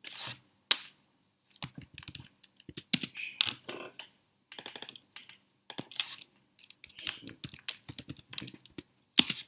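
Computer keyboard typing: irregular runs of key presses with short pauses between them, entering numbers into a computer.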